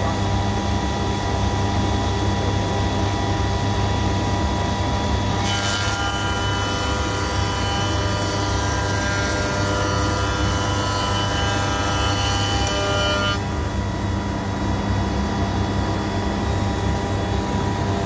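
SCM L'Invincible TI 5 spindle moulder running steadily with its SCM Formula 48 power feeder, a constant hum with several steady tones. From about five seconds in until about thirteen seconds a length of timber is fed through the cutter block, adding a higher, harsher cutting noise that stops suddenly as the piece clears.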